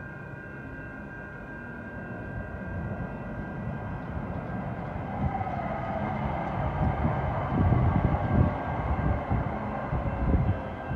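Metro Blue Line light-rail train pulling into the station. Its rumble grows louder over several seconds, and a whine falls in pitch as the train slows. Uneven low thumps of the wheels on the track are loudest in the last few seconds.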